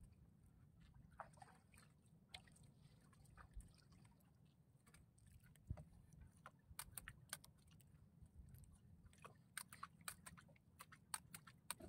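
Near silence: a faint low rumble with a scatter of small, sharp clicks, thickest in the second half.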